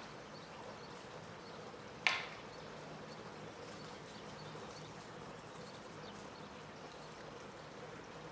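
A single sharp knock about two seconds in, over a faint steady background hum.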